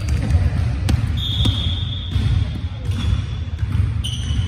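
Volleyball bounced on a hardwood gym floor, with a sharp thud about a second in and another about three seconds in, over a steady low rumble of the hall. A high steady tone runs for nearly two seconds between the thuds.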